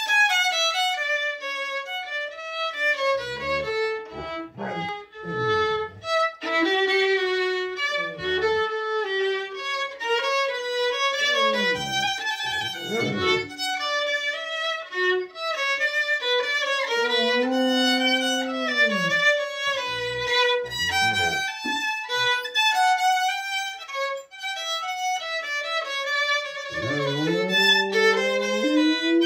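A violin played with a bow, a run of held notes, while a golden retriever howls along to it at intervals with long howls that slide up and down in pitch, one rising howl near the end.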